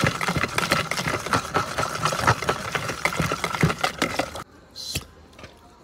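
A metal utensil stirring a thick yogurt marinade fast in a plastic tub: a quick run of scraping clicks against the sides, which stops abruptly about four and a half seconds in.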